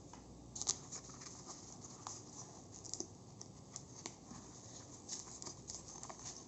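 Hands handling small packaging and lens accessories: scattered light scratches, rustles and clicks, the sharpest click just under a second in.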